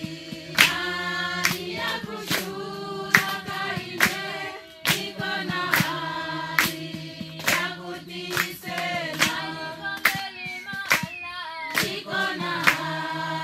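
A group of voices singing a church song together, with hands clapping on the beat a little more than once a second.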